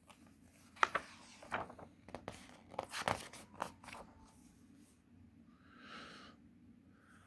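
Paper pages of a hardcover picture book being turned by hand, rustling and crackling in a quick run of sharp crackles over about three seconds.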